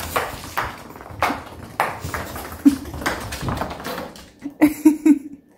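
An acorn clattering and skittering across a hardwood floor as a cat bats it: a string of sharp taps and knocks about every half second. A few short chirps near the end are the loudest part.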